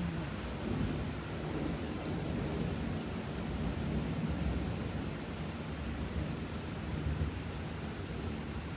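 Thunder rumbling low and continuous, swelling slightly about a second in, over the steady hiss of rain.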